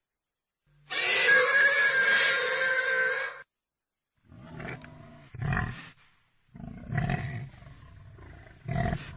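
A pig squealing loudly for about two and a half seconds, then, after a short gap, a run of short low grunts.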